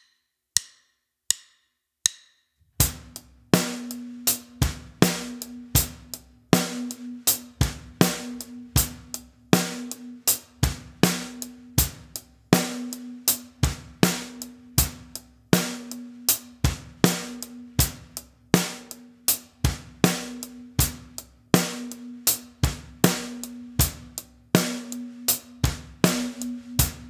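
Drum kit playing a steady eighth-note beginner groove at 80 BPM after a few count-in clicks. The hi-hat plays straight eighths, the snare falls on 2 and 4, and the bass drum lands on 1 and the "and" of 3.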